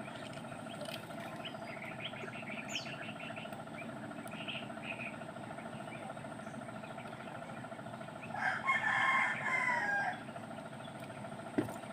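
A rooster crowing once, about eight seconds in, over a steady drone. A single sharp knock comes near the end.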